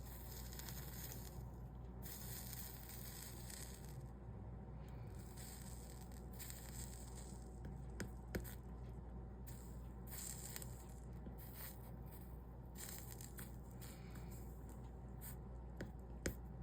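Soldering iron hissing and sizzling on fluxed copper-foil seams of a stained-glass panel as 60/40 solder is run along them, stopping and starting every second or so, with a few light clicks.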